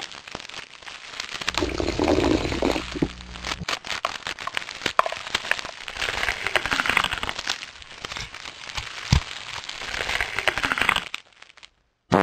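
Crackling and crunching eating noises at the table, with many scattered sharp clicks and a low hum for about two seconds near the start. The sound cuts out about a second before the end.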